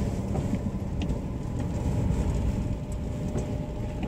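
Car engine and road noise heard inside the cabin while driving: a steady low rumble with a few faint ticks.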